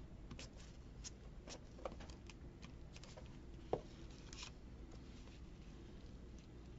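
Faint handling of paper and cardboard pieces during craft work: scattered light clicks and a short rustle, with one sharper tap a little under four seconds in.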